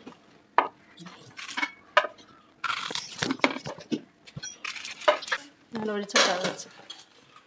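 Ripe plantains being cut into chunks with a knife and dropped into an aluminium idli steamer pot: a run of short knocks and metal clinks. Near the end the aluminium lid goes onto the pot.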